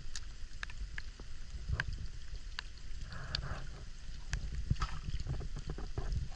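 Water lapping and sloshing against a wooden dugout canoe right at the waterline, with scattered small drips and clicks. A short splash comes about three seconds in as a plastic bottle float is set into the water.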